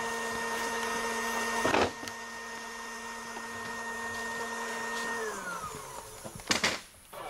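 An electric appliance motor running with a steady whine over a hiss, then winding down in pitch as it is switched off about five seconds in. A loud knock comes just before two seconds in, and two sharp knocks come near the end.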